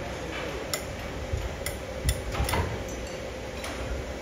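A few scattered sharp clicks and light knocks, about five in four seconds at uneven spacing, over a steady low rumble.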